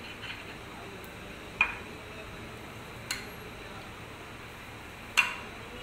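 A metal spoon clinking against a glass baking dish three times while white sauce is spread in it. Each is a sharp tap with a brief ring; the last is the loudest.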